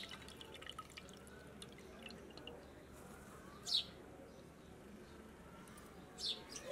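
Wet squelching and squishing of hands kneading raw chicken pieces in a creamy marinade in a clay bowl, with two short high squeaks about halfway through and near the end.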